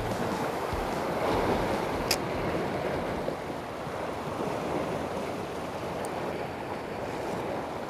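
Sea swell washing against the rocks, with wind buffeting the microphone; one short sharp click about two seconds in.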